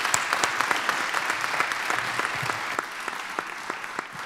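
Audience applause: many people clapping together, thinning out and fading in the last second or so.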